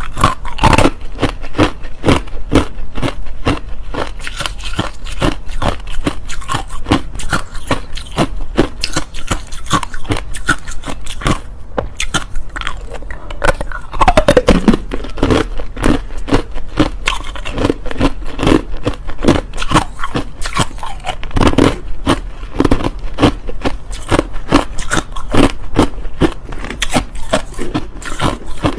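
Hard, clear crushed ice being bitten and chewed: a dense, unbroken run of sharp crunches and cracks, several a second.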